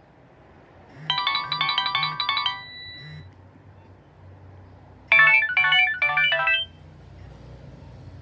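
Nokia 2660 ringtone playing from the phone's speaker: a quick run of bright electronic notes about a second in, ending on a held note, then after a pause a second short phrase of quick notes about five seconds in.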